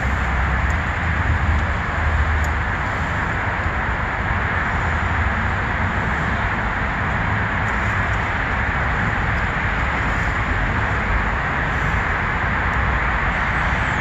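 Steady outdoor background noise: an even hiss over a low, wavering rumble, with no distinct events.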